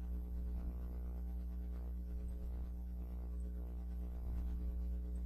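Steady low hum with faint, soft ambient background music.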